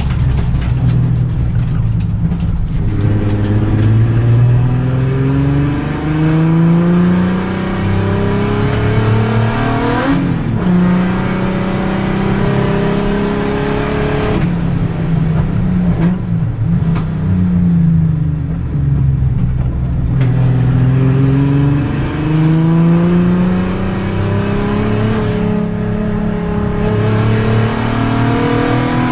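Turbocharged Ford Barra straight-six engine heard from inside the race car's cabin, driven hard. It climbs in pitch again and again as it accelerates and drops back at each gear change and when braking, over steady road and tyre noise.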